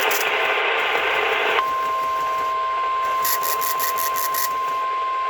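National Weather Service weather-radio warning alarm tone (the 1050 Hz alert tone): one steady, unbroken beep that comes on about one and a half seconds in, sounded as a routine test. It follows a short burst of hiss-like radio noise.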